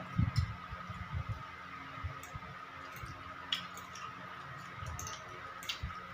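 Close-up eating sounds: chewing with scattered small mouth clicks and smacks, a few soft low thumps in the first second or so. A faint steady high whine runs underneath.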